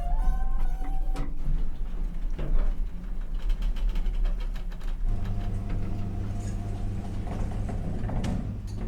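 Hotel elevator in operation: a chime tone fades out in the first second, then mechanism clicks and rattles, and from about five seconds in a steady motor hum as the car travels.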